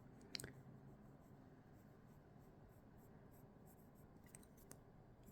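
Very faint scratching of a drawing tool on paper, with a few light clicks, as black shading is coloured in.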